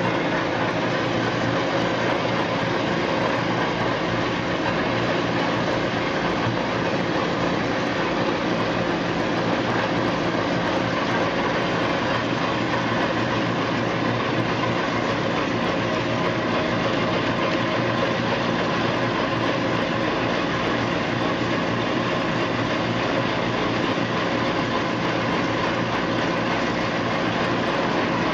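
Nylon-brush onion peeling machine running: its brush rollers turn and the onions tumble and knock against one another under a water spray. The result is a steady rattling rumble with a constant hum.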